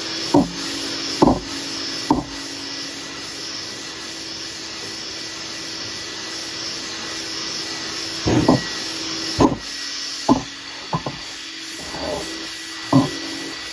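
A vacuum running steadily through the hose of a dust-extraction sanding block, while hand block-sanding rasps over the 2K primer on a steel truck door. Short, louder scuffs come a few times near the start and again through the second half.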